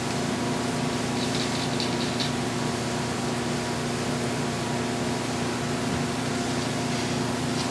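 Steady machine hum with an even pitch, with a few faint light clicks about one to two seconds in.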